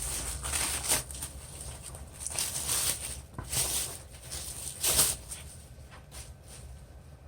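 Rustling and crinkling of a plastic sewing-machine dust cover being unfolded and handled, in irregular swishes that die down near the end.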